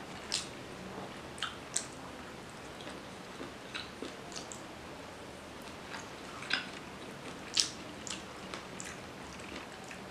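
Close-miked eating sounds of a person eating rice and fish curry by hand: irregular wet clicks and smacks of chewing and of fingers working the rice. One click about three-quarters of the way through is the loudest.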